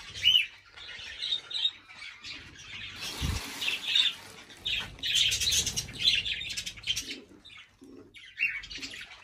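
Aviary parrots (budgerigars, cockatiels and ring-necked parakeets) squawking and chirping in many short, overlapping calls, with a single low thump about three seconds in.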